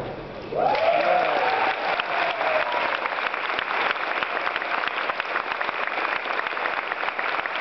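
Audience applauding, starting about a second in after a brief lull, with one long cheer over the clapping at first.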